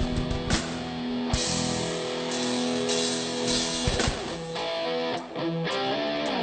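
Music led by guitar, with several sharp percussive hits and a melody line that moves up and down in the second half.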